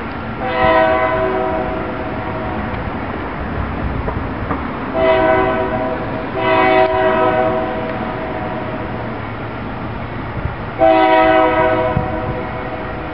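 Diesel freight locomotive's air horn sounding four blasts: a long one at the start, two shorter ones close together about five seconds in, and another long one near the end, over the low rumble of the approaching train.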